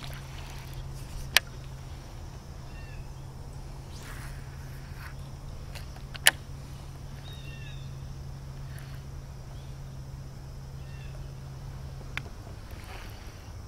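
A bass boat's electric trolling motor hums steadily at a low pitch and stops with a small click about twelve seconds in. Two sharp, loud clicks come about a second in and about six seconds in, with faint bird chirps now and then.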